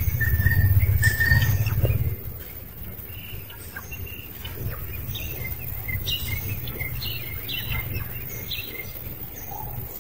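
Birds chirping in short, high, scattered calls. A low rumble runs through the first two seconds, then drops away.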